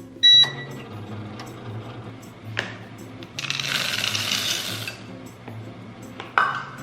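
A short electronic beep from a kitchen appliance just after the start, then about a second and a half of hissy scraping or rustling noise midway, with a couple of single clicks, over background music.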